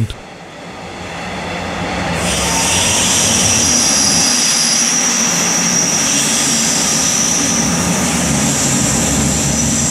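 Train running on the track: a steady rumble and rush of noise that swells over the first two or three seconds and then holds, with a steady high whine from about two seconds in.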